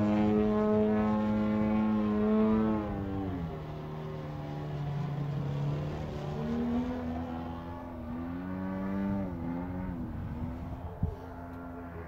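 Desert Aircraft DA-120 twin-cylinder two-stroke gas engine with a canister exhaust, driving a large radio-controlled Extra aerobatic plane in flight. The engine note holds high, drops sharply about three seconds in, climbs again after six seconds and dips once more around nine seconds, growing fainter as the plane moves away. A single brief knock comes near the end.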